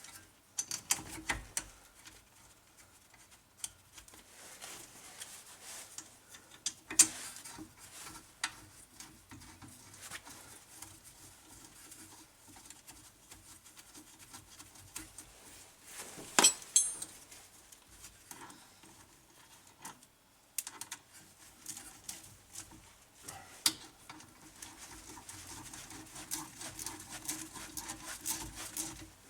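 Scattered metallic clinks and knocks of hand tools and brake parts being handled while a car's brake caliper is refitted, with two louder clanks about seven and sixteen seconds in.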